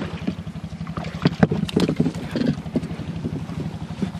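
A small engine running steadily with an even low drone. About a second to two and a half seconds in, a cluster of knocks and splashes sounds over it.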